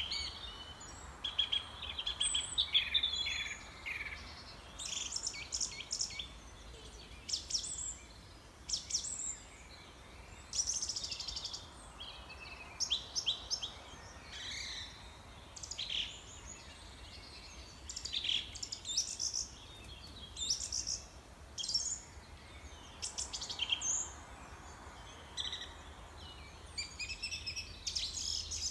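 Songbirds chirping and singing, with short high calls and trills coming every second or so, over a steady low hum.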